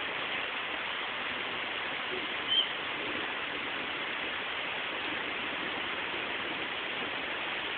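Rain falling steadily, an even hiss. One short high-pitched squeak about two and a half seconds in.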